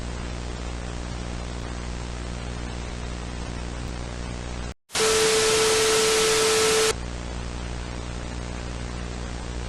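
Steady broadcast static hiss over a low electrical hum. About five seconds in the sound drops out for an instant, then a louder burst of static with a steady mid-pitched tone runs for about two seconds and cuts off, and the hum and hiss return.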